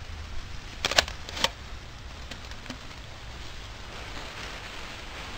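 The sliding metal draft door at the base of a Big Green Egg kamado grill being pushed shut: a sharp clack about a second in and a second knock half a second later. Closing the door cuts the air to the charcoal fire. A faint steady hiss runs underneath.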